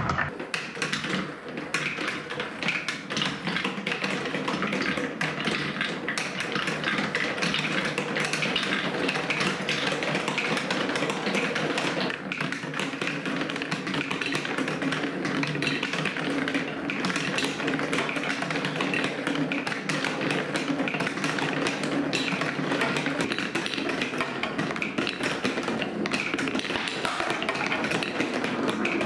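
Balls rolling one after another down a plastic TrixTrack wave-slope marble run, with a dense, continuous clatter of clicks and taps as they run through the dips.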